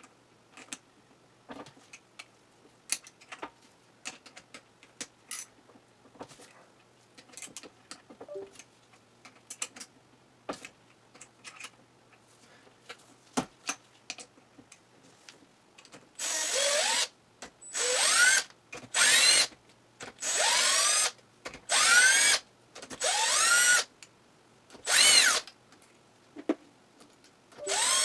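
Scattered light clicks of tools and parts being handled, then about seven short runs of a cordless drill-driver, each a rising whine as the motor spins up, backing out the clutch cover bolts.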